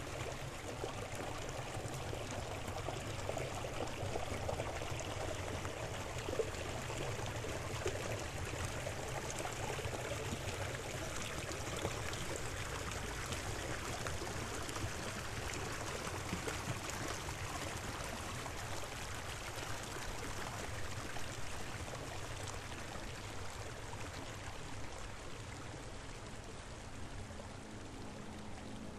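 Steady rushing water of a mountain stream or torrent, running evenly, with a few faint ticks.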